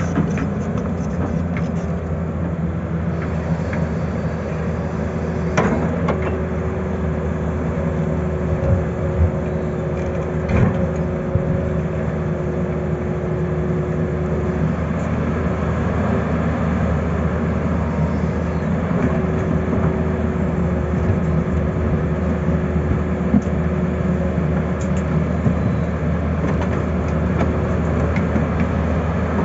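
Tata Hitachi crawler excavator's diesel engine running steadily under load while it digs, with a steady whine over the engine drone. A couple of sharp knocks come about six and ten seconds in.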